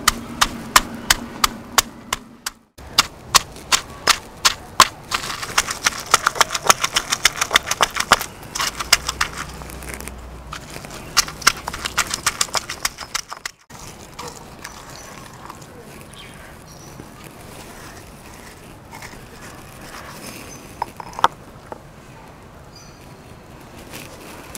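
Pestle pounding green chillies, ginger, garlic, cumin, salt and coriander in a mortar into a masala paste: sharp knocks about two a second, quickening about five seconds in and stopping about halfway through. After that there are only a few faint taps.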